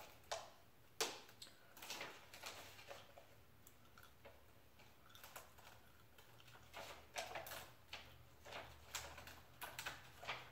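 Faint, scattered clicks and crackles of a paper backing sheet being peeled off an adhesive pinball playfield hardtop, with one sharper click about a second in.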